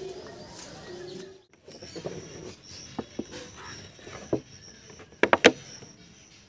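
Clear plastic bottle being handled on the ground, giving a few sharp plastic clicks and knocks, the loudest cluster about five seconds in. A steady high-pitched whine runs in the background from about two seconds in, and a low hum sounds twice in the first second and a half.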